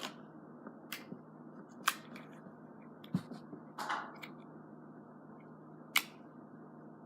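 A few light, scattered clicks from a plastic slime container being opened and handled, with a brief rustle about four seconds in.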